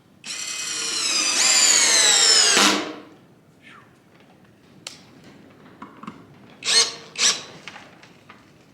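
Brushless motor of a Seyvum PD-BL10 21-volt cordless drill/driver whining for about two and a half seconds as it drives a drywall screw, its pitch sagging under load. A few light clicks follow, then two short bursts of the motor about half a second apart near the end.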